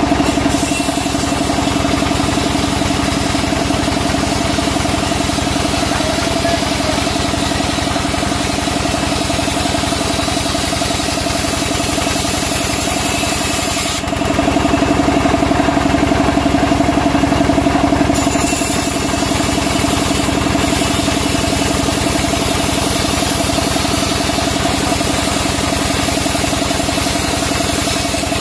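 Vertical band sawmill running steadily while a wooden beam is fed through the blade: a constant machine hum with a steady mid-pitched tone. For a few seconds around the middle it turns louder and duller.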